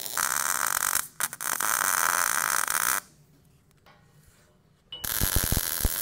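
MIG welding arc on a Miller 252 running solid wire with shielding gas, crackling steadily as it welds steel pipe, with brief breaks in the arc about a second in. The arc stops about three seconds in; after about two seconds of near silence, noise returns with a few low knocks.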